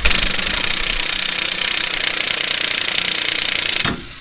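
Impact wrench hammering steadily on a suspension bolt for nearly four seconds, then stopping abruptly.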